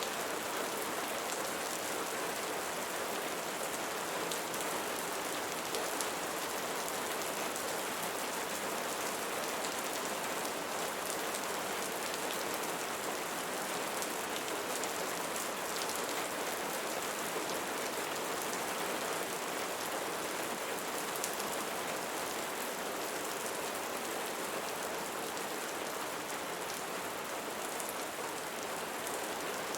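Steady rainfall: an even hiss of rain with a faint patter of individual drops.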